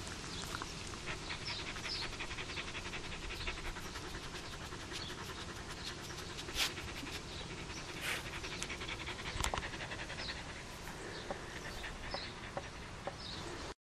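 A dog panting in quick, even breaths, with a few sharp clicks about six and a half, eight and nine and a half seconds in.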